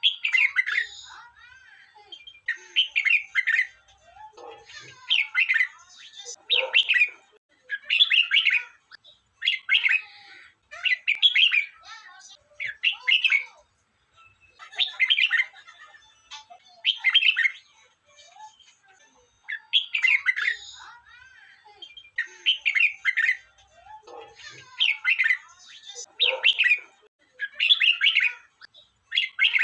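Red-whiskered bulbul singing: short whistled phrases of about a second each, repeated every one to two seconds.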